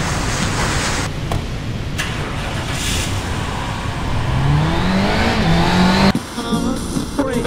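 Car engine revving over a heavy rumbling noise, its pitch rising for about two seconds before it cuts off suddenly. Two sharp knocks come in the first couple of seconds.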